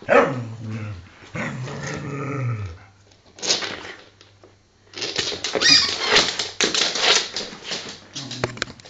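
A dog barking and growling in excited play over a squeaky toy, with a run of rapid scuffling and clicking in the second half.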